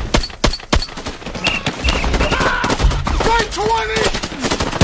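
Battle sound from a war film: dense automatic rifle and machine-gun fire, with men shouting over it in the middle.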